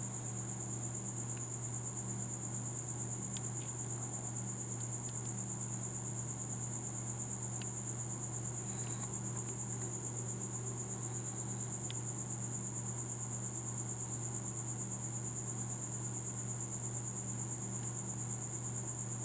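A steady high-pitched trill runs unbroken over a low steady hum, with a few faint ticks.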